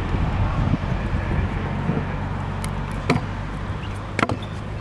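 Stunt scooter wheels rolling on a concrete skatepark surface with a steady rumble, with a few sharp clacks of the deck and wheels hitting the concrete, the loudest near the end as the rider lands.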